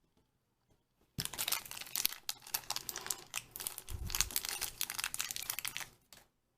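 A Shopkins blind-pack bag crinkling and crackling as it is torn open and handled by hand, dense and continuous from about a second in until near the end, with a dull low bump partway through.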